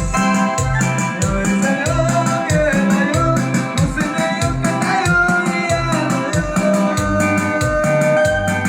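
Live band playing a Mixtec dance song: a melody over a steady bass beat, with a shaker keeping a fast rhythm.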